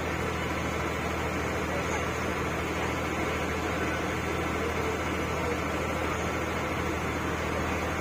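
Boat engine running at a steady speed: a constant low drone with an even hiss over it.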